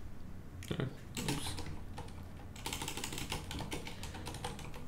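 Computer keyboard typing: a few keystrokes about a second in, then rapid, continuous keystrokes from about halfway through.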